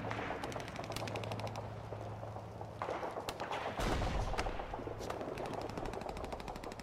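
Battle sound effects of gunfire: a rapid machine-gun burst about half a second in, then scattered single shots and a low boom about four seconds in, over a steady low hum.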